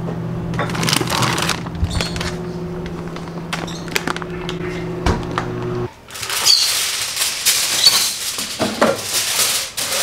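Steady low hum from an open freezer, with plastic food packaging rustling and a few knocks; the hum cuts off abruptly about six seconds in. Then aluminium foil is pulled from its box, torn and crinkled.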